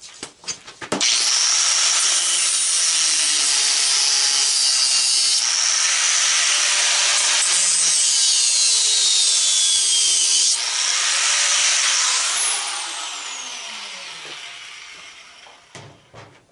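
Angle grinder starting up about a second in and grinding into a propane regulator clamped in a vise, its pitch shifting as it bites into the metal. About twelve seconds in it is switched off and winds down with a falling whine.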